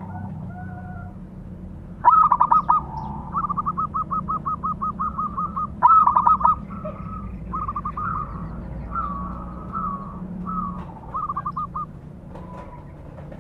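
Zebra dove (perkutut) cooing: quick runs of short, evenly repeated notes, starting about two seconds in, with a louder burst near the middle and shorter phrases trailing off near the end.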